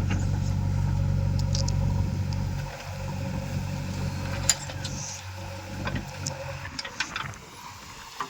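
Diesel engine of heavy earth-moving machinery running steadily, louder for the first few seconds and then quieter, with a few sharp metallic clanks in the second half.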